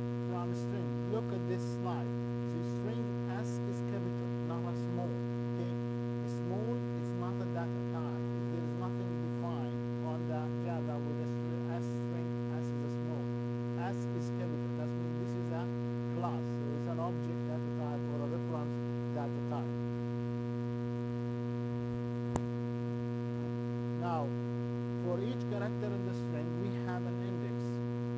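Steady electrical mains hum with a stack of overtones, unchanging throughout, with faint short wavering sounds beneath it.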